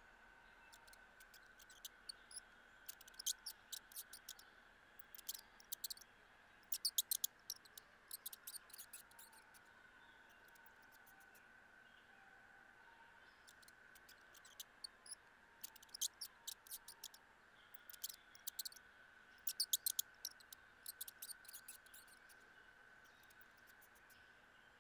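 Mice feeding on peanut butter on a hard plastic bowl: faint clusters of quick sharp clicks and ticks from their teeth and claws on the plastic, in two spells separated by a lull. A steady faint high hum lasts throughout.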